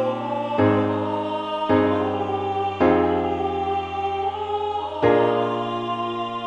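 Choral practice track: voices in close harmony hold sustained chords that change four times, the longer one held from about three to five seconds in.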